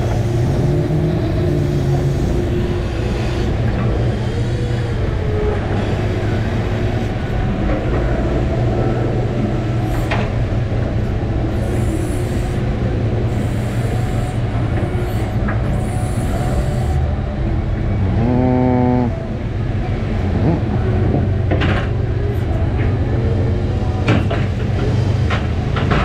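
Fishing boat's engine and deck hydraulics running with a steady drone while a crab pot is hauled, with sea and wind noise over the deck. There are a few knocks, and a short pitched tone lasts about a second roughly two-thirds of the way through.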